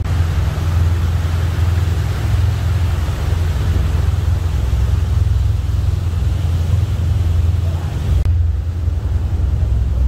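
Steady low engine rumble under a hiss of wind and rushing air; the hiss cuts back suddenly about eight seconds in.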